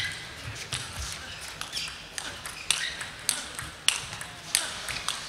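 Table tennis rally: the celluloid-type ball clicking sharply off rubber-faced bats and bouncing on the table, in a quick back-and-forth of about two hits a second.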